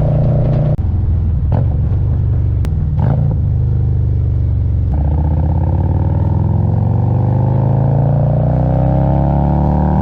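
Harley-Davidson Road Glide's Milwaukee-Eight 117 V-twin under way. The engine note drops about a second in, then from about halfway rises steadily in pitch as the bike accelerates, falling away again at the very end.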